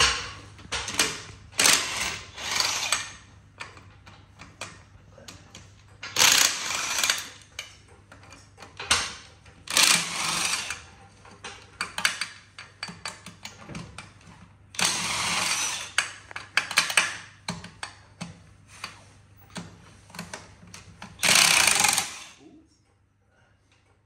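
Cordless impact wrench on the lug nuts of a car's wire wheel, hammering in about a dozen short bursts, the last a couple of seconds before the end. A faint steady hum runs underneath.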